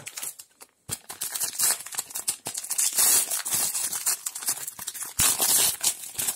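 A foil trading card booster pack wrapper being crinkled and pulled open by hand: dense, crackly rustling that starts about a second in.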